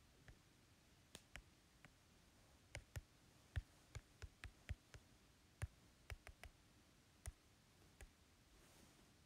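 Typing on an iPad's on-screen keyboard: an irregular run of about eighteen light keystroke clicks as a short line of text is entered.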